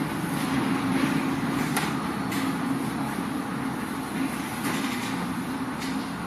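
A ship's engine running with a steady low hum, under a rushing noise that swells several times.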